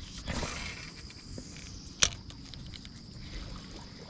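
A steady high-pitched insect trill, with a brief rushing noise about half a second in and one sharp knock about two seconds in.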